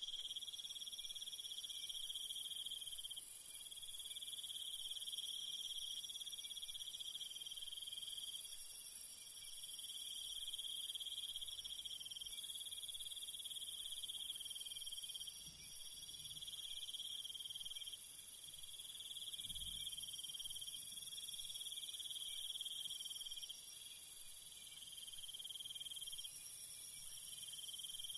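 A chorus of crickets and other grass insects trilling steadily in several overlapping high-pitched trills. Individual singers start and stop every few seconds.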